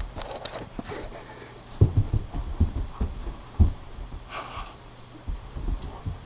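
A dog scrambling across the floor: claws clicking, then a run of irregular low thuds from its paws, and a short breath of air about four seconds in.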